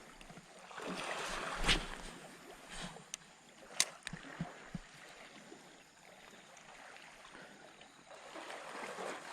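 Sea water sloshing with a rushing swell about a second in and again near the end, broken by a couple of sharp clicks near two and four seconds.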